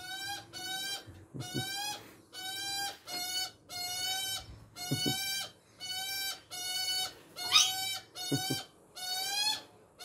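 Juvenile Australian magpie begging, a steady series of short, even calls, about one and a half a second, asking a parent to feed it. One call near the end rises higher and louder.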